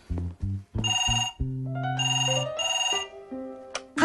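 Landline telephone ringing in three short bursts, over cartoon background music with low held notes and a rising run of notes.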